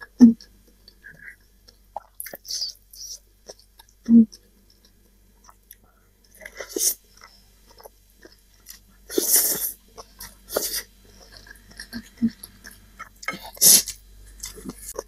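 Close-up mouth sounds of someone eating spicy instant cup noodles: chewing, with two short low thuds and four or five short hissing bursts scattered through.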